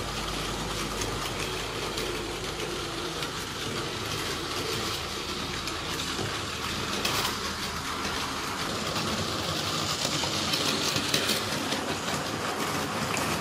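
Several battery-powered Plarail toy trains running on plastic track, their small motors whirring and their wheels clicking over the track joints. The sound grows louder near the end as a train passes close.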